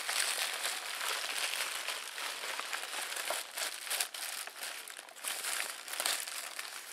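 White plastic mailing bag crinkling and rustling as a hand rummages inside it to draw items out, a dense crackle with many sharp crinkles.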